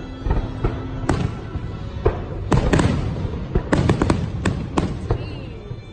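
Aerial fireworks shells bursting: a single sharp bang about a second in, then a dense string of bangs from about two and a half seconds in until near the end, with music playing underneath.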